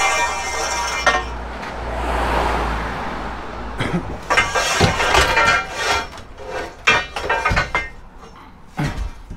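Pieces of scrap steel clanking and ringing against each other as they are handled, in clusters of sharp metallic knocks near the start and again through the middle. A rushing swell of noise rises and fades around two seconds in.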